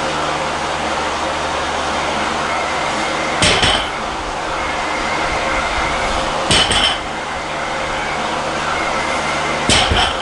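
Barbell loaded with 120 kg of bumper plates set down on the floor three times, about three seconds apart, each touchdown a short, sharp double clank of bar and plates. A steady noise hiss runs underneath.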